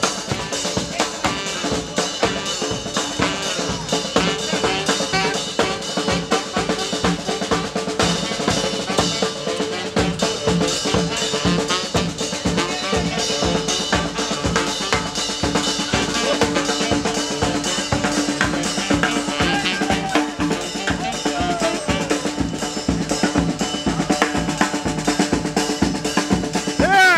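Street band playing: a bass drum with a cymbal on top and a snare drum keep a steady beat, with a saxophone playing the tune over them.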